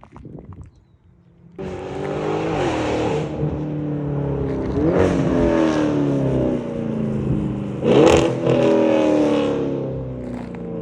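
Dodge 392 Scat Pack's 6.4-litre Hemi V8 exhaust cutting in suddenly about a second and a half in and running loud, with three throttle blips rising and falling in pitch. The last blip, about eight seconds in, is the loudest.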